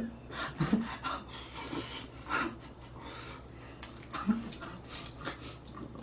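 Close-miked mouth and breath sounds of a man eating spaghetti while laughing under his breath: short chewing and slurping noises mixed with breathy chuckles.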